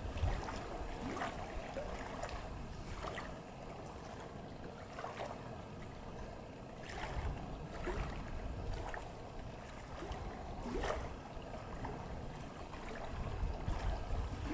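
Wind rumbling on the microphone over lapping lake water, with a few faint short splashes scattered throughout.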